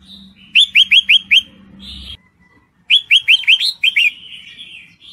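Red-whiskered bulbul calling: a quick run of about five short, sharply falling chirps, then a second run of about six a second and a half later. The call is offered as a female in breeding condition calling to a male.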